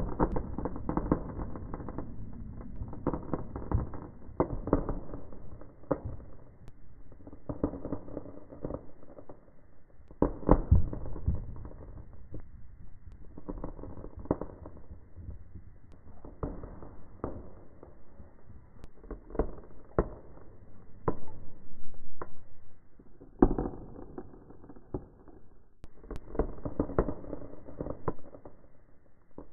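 Cannabis seeds being crunched between the teeth, slowed down heavily so that the cracks become deep pops and crackles resembling fireworks. They come in bursts of sharp cracks with short pauses between.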